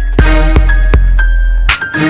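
Background music with a steady beat: regular percussive hits about twice a second over a deep bass and held synth notes, with a short drop-out and a swish near the end.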